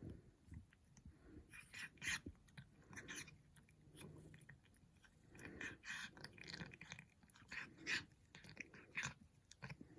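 A Persian cat chewing chicken cat treats: a faint run of irregular crunches and mouth clicks.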